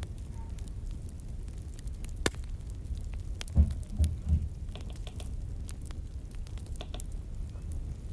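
Crackling fire: scattered sharp pops and crackles over a steady low rumble. Three dull low thumps come in quick succession near the middle.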